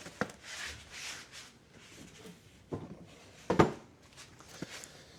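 Hand work on a lawn mower wheel assembly: soft rubbing and scraping, then a few separate clicks and knocks of parts being handled, the loudest about three and a half seconds in.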